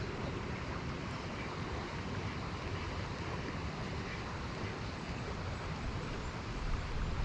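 Steady rush of a fast-flowing river, with wind rumbling on the microphone.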